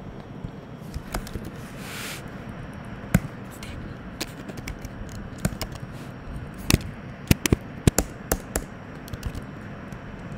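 Computer keyboard keystrokes typed in uneven runs, a few clicks sharper and louder than the rest, over a steady low background hum.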